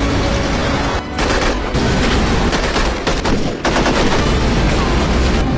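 Rapid gunfire from handguns and rifles, many shots in quick succession, with short breaks about a second in and again near three and a half seconds.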